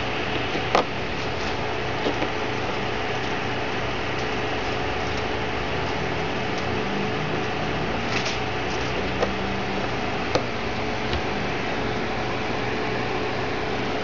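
A steady hiss with a constant faint tone, with a few small clicks and taps as fingers push a graphic LCD module onto a breadboard.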